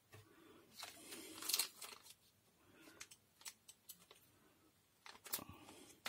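Faint handling noise from hands working over an opened plastic car door-lock module: a soft rustle early on, then a few small sharp clicks.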